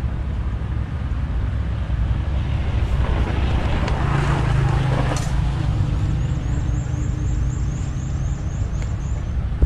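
Steady low rumble with a motor vehicle going by, loudest about four to five seconds in.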